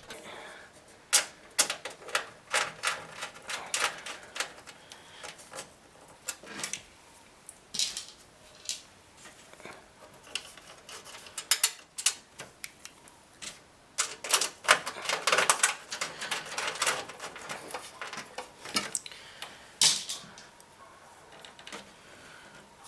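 Irregular clicks, taps and small rattles of hard parts and tools being handled, with a denser stretch of clattering and rustling about two-thirds of the way through.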